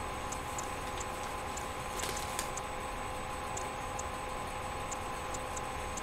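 Room tone with a steady hum and faint, irregularly spaced light ticks, with two slightly sharper clicks about two seconds in.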